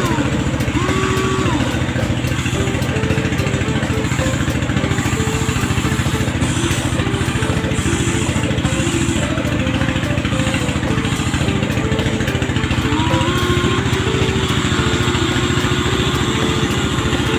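Huina 1593 RC excavator working: a steady engine-like running sound, with whines from its motors that glide up and down as the boom and bucket move.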